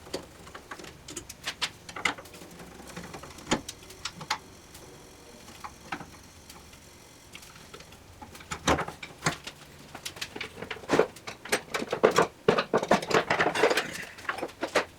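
Irregular clicks and knocks of hand tools and parts being handled while a table saw is taken apart. They are sparse at first and come thick and fast in the second half.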